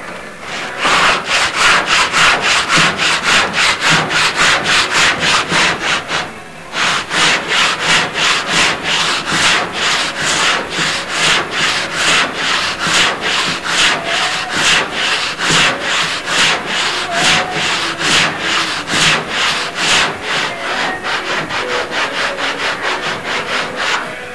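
Rhythmic back-and-forth rubbing strokes, like hand sanding, at about three strokes a second, with a brief pause about six and a half seconds in.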